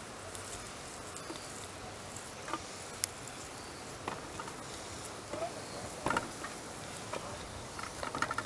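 Scattered soft taps and rustles of cooked chicken being pulled apart by hand and dropped into an aluminium pot, over a steady outdoor background hiss.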